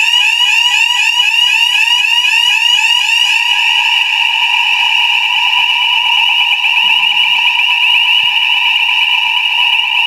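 Electronic fire alarm sounder. It starts with a rapid warbling tone, about four or five sweeps a second, which eases into a steadier continuous tone after a few seconds.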